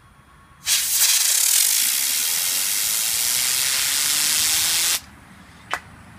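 Can of compressed air blasting a fidget spinner: a loud hiss for about four seconds, with a faint whir underneath that rises in pitch as the spinner speeds up. The hiss cuts off sharply, and a single click follows a moment later.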